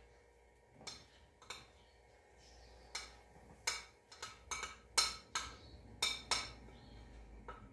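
Metal spoon clinking and scraping against a ceramic plate as chopped banana is pushed off it into a pan. A string of sharp clinks, a few in the first half and coming faster in the second half.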